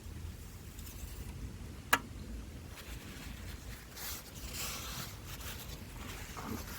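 A single sharp click about two seconds in, then a second or so of scraping, rustling handling noise and a few soft knocks near the end.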